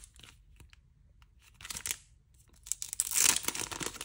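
Packaging crinkling and tearing as an item is unwrapped by hand: near quiet at first, a short rustle about two seconds in, then a louder burst of crinkling about three seconds in.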